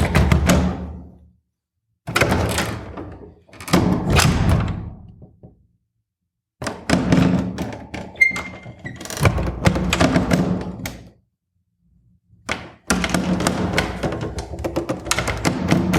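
A door being opened and shut over and over: latch clicks and the thuds of the door closing, in several separate takes with short silent gaps between them.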